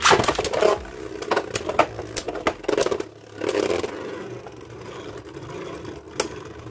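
Beyblade Burst spinning tops, Legend Spriggan and a Valkyrie, battling in a plastic stadium. A loud clatter at the start is followed by scraping and whirring, with repeated sharp clicks as the tops clash and one more near the end. The round ends in a burst finish.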